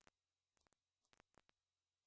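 Near silence, with a few faint, brief clicks scattered through it.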